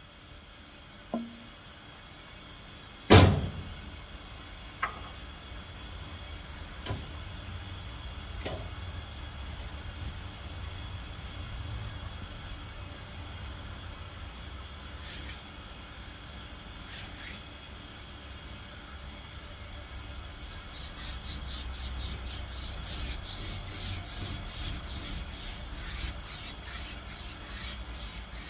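A few sharp knocks during repair work on the sawmill edger's bearing housing, one much louder bang about three seconds in. From about twenty seconds in come steady rasping strokes, about two a second, typical of hand filing or rubbing down the part.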